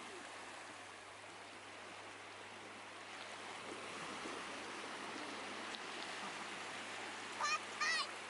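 Gentle shore wash on a sandy beach: a steady soft rush of small waves running up over wet sand. Near the end, two short wavering calls cut through.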